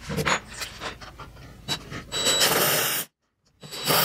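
Cordless drill driving a 2.5-inch pocket-hole screw into a 2x4 joint: light knocks and clicks of the wood and tool, then a second of steady whirring as the screw goes in, cut off suddenly, and another short burst of driving near the end.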